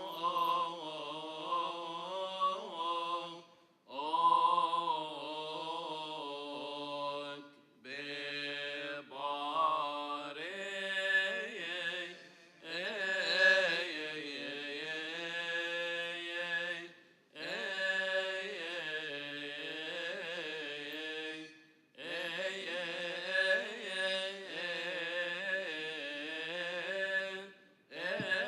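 A single male voice chanting the psalm in a slow, melismatic Coptic liturgical melody. Long wavering phrases are broken by brief pauses for breath every few seconds.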